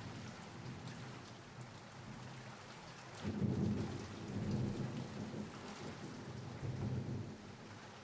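Thunderstorm ambience: steady rain falling, with low rolling thunder rumbling up about three seconds in and dying away near the end.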